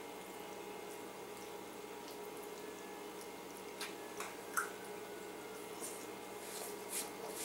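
A person chewing a mouthful of soft ravioli, with a few faint wet mouth clicks and smacks about four seconds in and again near the end, over a steady faint hum.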